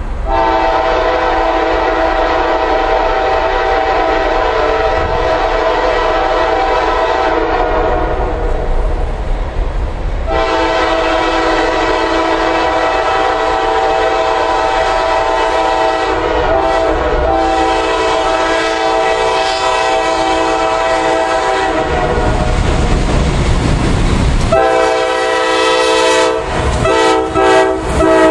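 Diesel freight locomotive's multi-note air horn sounding long blasts for a grade crossing as the train approaches: one of about seven seconds, a longer one of about twelve, and a third beginning a couple of seconds after that. A low rumble of the oncoming train fills the gap before the third blast, and the train is passing close by near the end.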